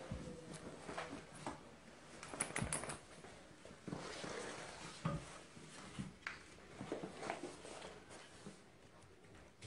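Scattered light taps and scuffs at an irregular pace: puppies' paws and claws on a wooden floor.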